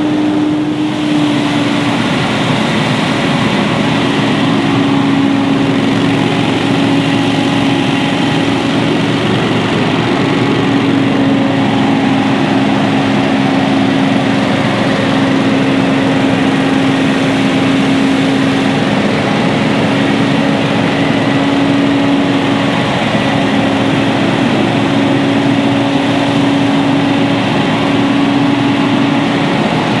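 Stand-on leaf blower running steadily: a loud engine drone over a rush of air, its pitch dipping slightly about a second in and then holding.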